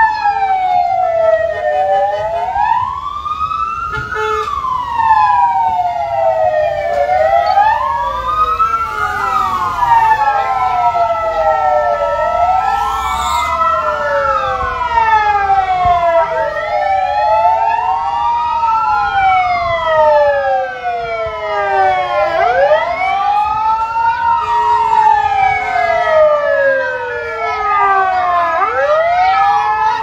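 Several ambulance sirens wailing at once and out of step, each slowly rising and falling in pitch so that the wails overlap and cross.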